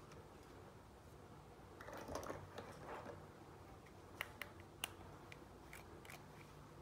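Small plastic toy pieces being handled, a miniature makeup-brush set in its plastic stand: a soft rustle, then several sharp, light plastic clicks.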